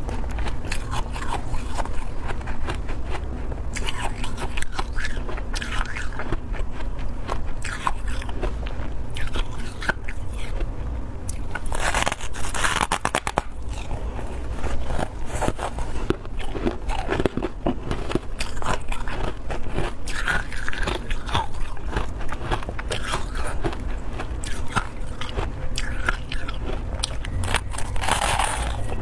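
Close-miked biting and chewing of powdery freezer frost: a dense run of crunchy, crackling bites, with a few louder crunches about halfway through and near the end.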